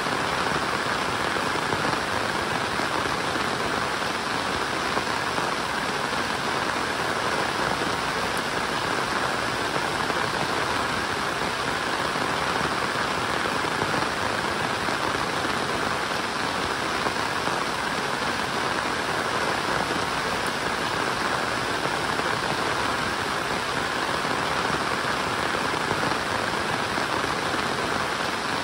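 Rain falling steadily, an even noise with no breaks or changes.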